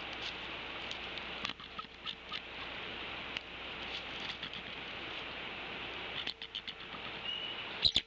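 Steady hiss with scattered light clicks and rustles of nest sticks and grass as an adult bald eagle shifts about on the nest; a sharper, louder click comes near the end.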